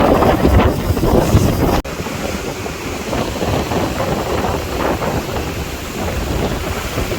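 Sea waves washing continuously, with wind buffeting the microphone; the sound is heavier for the first couple of seconds, drops out for an instant, then carries on steadier.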